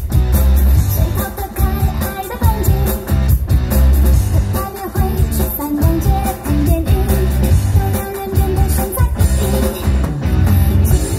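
Loud pop dance song with a singing voice over a heavy, even bass beat.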